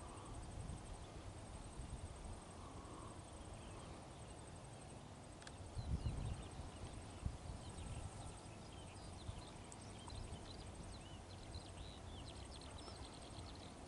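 Faint outdoor ambience: a low rumble that swells with a few thumps about six seconds in, and small birds chirping in many short, quick calls through the second half.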